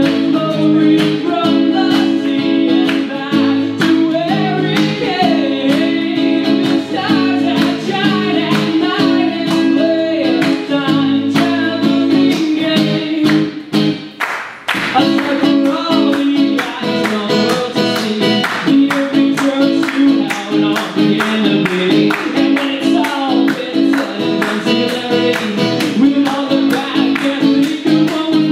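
Live folk-rock band music: a strummed acoustic guitar keeping a steady rhythm under a melody line, breaking off briefly about halfway through before coming back in.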